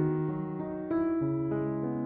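Background piano music: gentle notes played one after another, a new note every quarter to half second.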